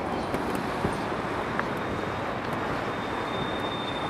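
Steady outdoor background noise: a dull, even rumble with a few faint clicks, and a faint high whine in the second half.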